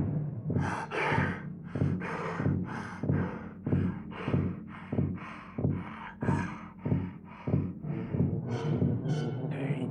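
Cartoon bear character panting heavily and rhythmically, about two hard breaths a second, out of breath after running.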